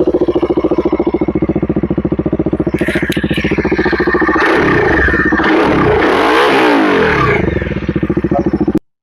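Bajaj Dominar 400's single-cylinder engine running through an SC Project slip-on exhaust with a steady low-rpm thump. About halfway through it is revved up and back down, then settles back to the thump. The sound cuts off abruptly near the end.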